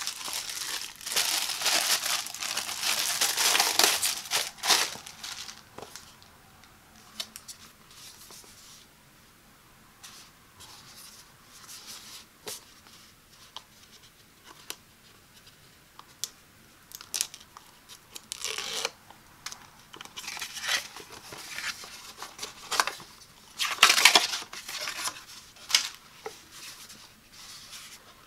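Clear plastic shrink wrap crinkling and tearing loudly as it is pulled off a cardboard product box, lasting about five seconds. Then quieter handling of the box, with scattered taps and rubs and a few short, sharp scrapes later on.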